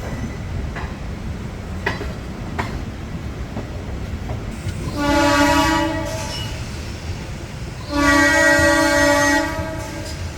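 DEMU (diesel-electric multiple unit) train running with a steady low rumble and a few clicks of wheels over rail joints. Its horn sounds two blasts, a short one about five seconds in and a longer one about eight seconds in.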